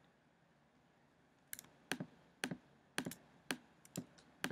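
A run of about ten sharp, unevenly spaced clicks of computer mouse or keyboard input, starting about a second and a half in after a quiet stretch.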